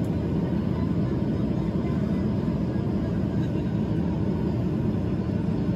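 Steady cabin noise inside a Wizz Air Airbus airliner descending on approach, heard beside the wing engine: an even, low drone of the jet engine and rushing airflow.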